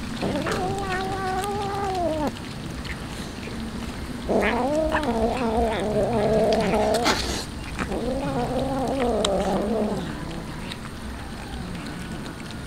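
A domestic cat yowling in three long, drawn-out calls, each lasting two to three seconds, with a few short clicks between them.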